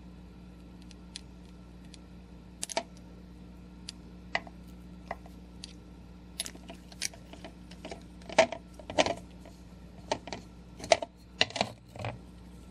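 Small clicks and taps of a Boston Safety fountain pen being handled against an ink bottle while it is filled, sparse at first, then quicker and louder in the second half. A faint steady hum runs underneath.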